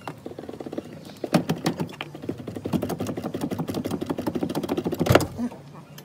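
Fast run of clicking and rattling from hands working on the car's plastic windshield cowl panel and wiper arm, with a sharper knock about a second in and a louder one near the end.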